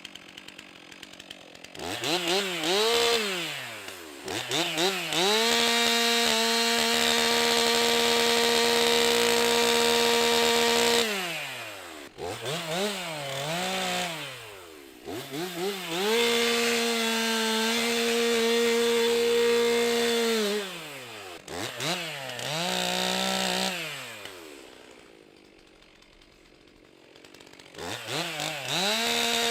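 Stihl MS 362 C-M two-stroke chainsaw bucking a log. The throttle is blipped a few times, then held wide open through a cut of about five seconds and another of about four, with a shorter rev after. Near the end it drops to idle briefly, then revs up again.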